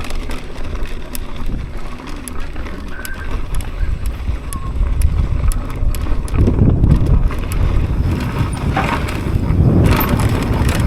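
Wind buffeting the microphone over the clatter of a mountain bike rattling down a rough trail, with many small knocks. The rumble grows louder about six seconds in.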